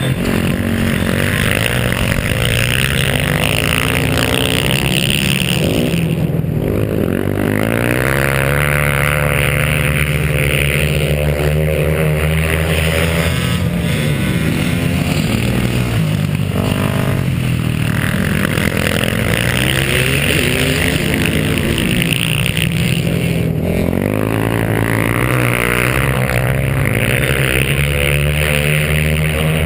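A 450cc four-stroke dirt bike engine running hard, its pitch climbing and dropping back several times as the bike accelerates across the ice.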